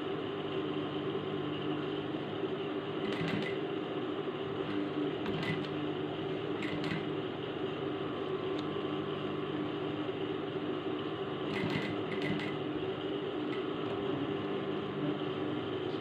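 Elestar industrial sewing machine stitching the side seam of a fabric pouch, its motor humming steadily, with a few short clicks scattered through.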